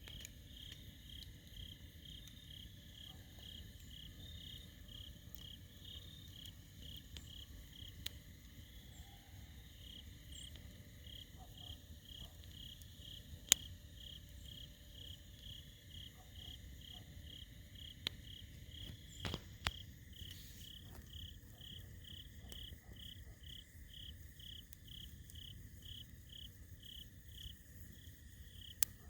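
Campfire burning with a few sharp pops, one much louder than the rest, over a low steady rumble. Behind it an insect chirps in an even, unbroken rhythm of about two to three pulses a second.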